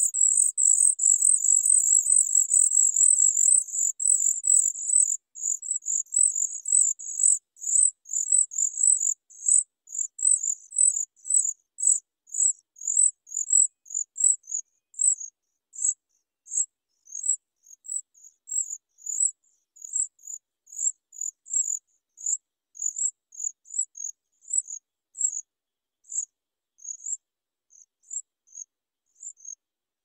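Sooty chat nestlings' high, thin begging chirps, fast and almost continuous at first, then thinning to sparse single chirps as the brood settles after a feed.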